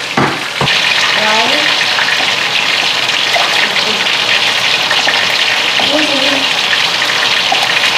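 Hot cooking oil frying with a loud, steady sizzle that starts suddenly under a second in, as food goes into the pan. Two sharp strikes of a pestle in a stone mortar come right at the start.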